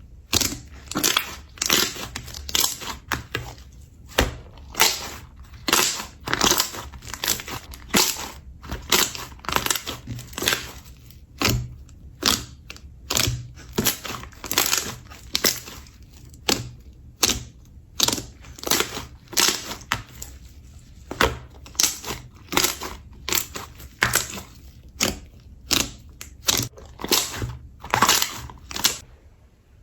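Slime being pressed and squeezed by hand, giving a steady run of short crunching, crackling pops, roughly one to two a second.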